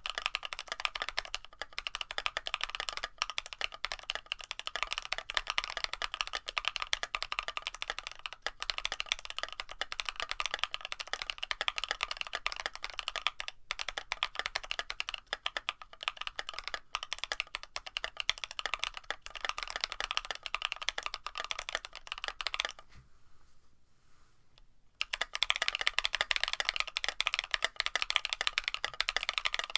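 Fast, continuous typing on an Aozora mechanical keyboard with NovelKeys Cream+ linear switches fitted with metal stem inserts, mounted on a carbon fiber plate. The keystrokes stop for about two seconds roughly three quarters of the way through, then start again.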